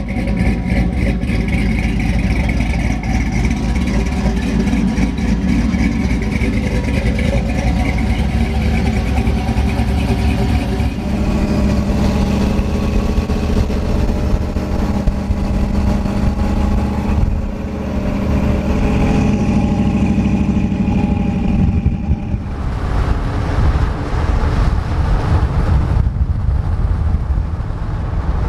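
Pickup truck driving: a steady engine drone with road and tyre noise, changing in tone about 11 and 22 seconds in.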